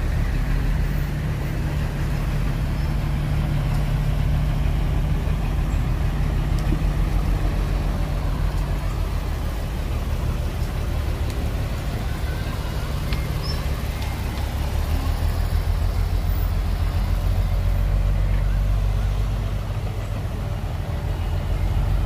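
Heavy diesel engine of earthmoving machinery running steadily, a deep low sound with no sharp changes.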